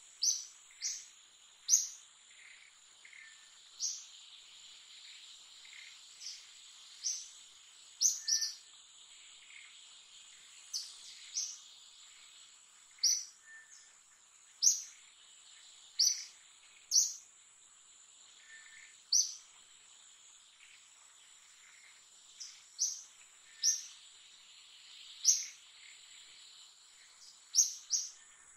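Forest ambience: a bird's short, sharp, falling chirps repeat about once a second at irregular spacing over a steady high-pitched insect drone.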